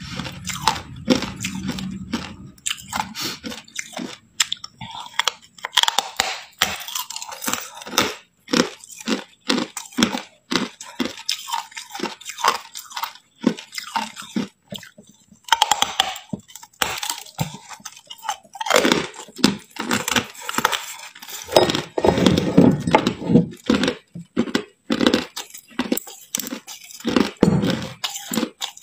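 A person biting into and chewing hard white ice: many sharp crunches and cracks, close together, with a brief pause about halfway through.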